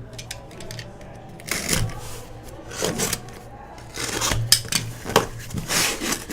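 A sealed box of trading cards being handled and opened by hand: irregular scraping, rustling and clicks of packaging, some strokes louder than others, over a steady low electrical hum.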